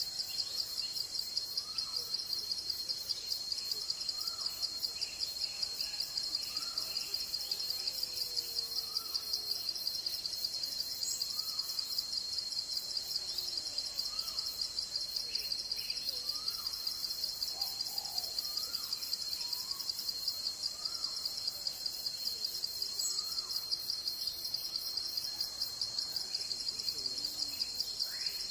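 Insects trilling steadily in a fast, high pulsing chorus, while a bird repeats a short chirped call every second or two.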